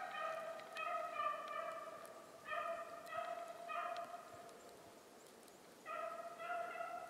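Beagles baying in full cry as they run a hare: long, drawn-out hound notes in strings, with a short lull about five seconds in.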